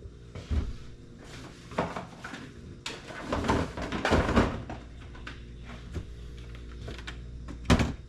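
Hand tools and a canvas tool bag being handled: scattered knocks and rustling as the bag is packed and the next tool is picked up, with a sharper knock near the end.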